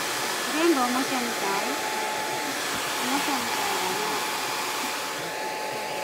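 Handheld hair dryer blowing steadily on a toy poodle puppy's coat. A few brief wavering vocal sounds rise over it about a second in and again a few seconds later.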